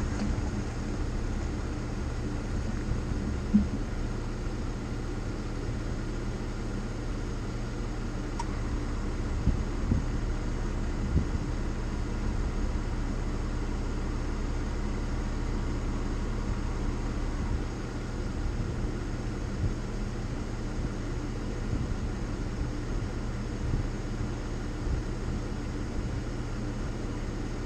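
Car engine idling steadily with the vehicle standing still, with a few faint knocks now and then.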